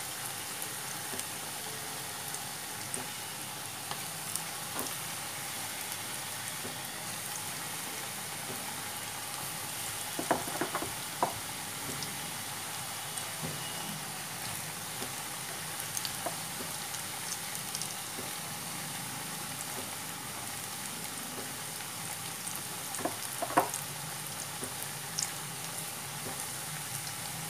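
Potato-and-onion gram-flour pakoras deep-frying in hot oil in a kadai: a steady sizzle, with a few short, louder clicks and spits about ten seconds in and again near the end.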